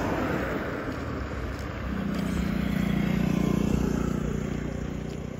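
Road traffic going past: a noisy rush at first that eases, then a vehicle's engine growing louder, loudest about three to four seconds in, and dropping away near the end.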